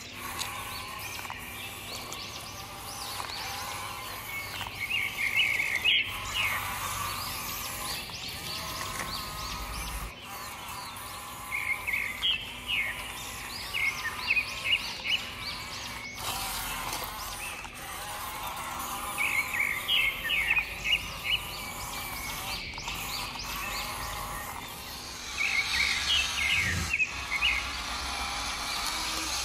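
A songbird singing short runs of quick chirps, about four times, over a steady background noise.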